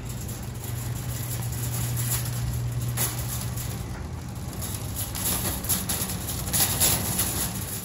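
Loaded wire shopping cart being pushed over pavement, its wheels rumbling and the metal basket rattling.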